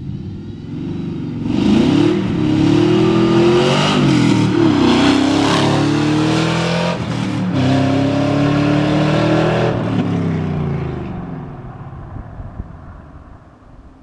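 2002 Camaro Z28's LS1 V8 on full exhaust (Pacesetter long-tube headers, true duals, Moroso spiral-flow mufflers dumped ahead of the rear wheels) accelerating hard past the microphone. The pitch climbs, drops at upshifts of the 6-speed, and climbs again, then the sound fades as the car drives off.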